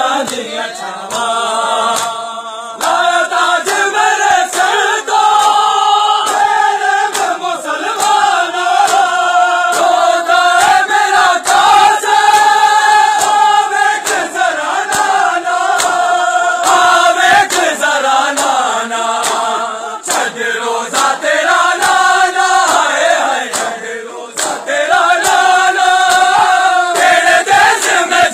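A group of mourners chanting a Punjabi noha (Shia mourning lament) in unison, long sung lines rising and falling, with sharp slaps at intervals.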